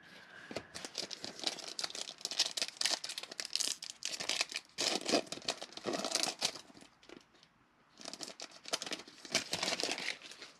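Foil trading-card pack crinkling and tearing as it is opened and handled, a dense crackle of small clicks with a brief pause about two-thirds of the way through.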